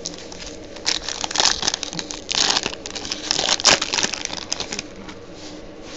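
Foil wrapper of a trading-card pack being torn open and crinkled by hand, in irregular bursts of crackling from about a second in that die away near the end.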